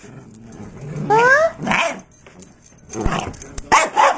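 Dachshund barking for food: a rising yelp about a second in, then several short sharp barks.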